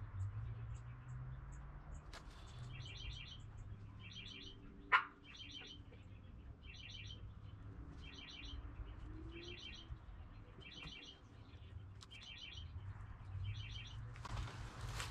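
A songbird repeating a short, high trilled phrase about once a second in the woods. A single sharp snap about five seconds in, and a burst of rustling near the end.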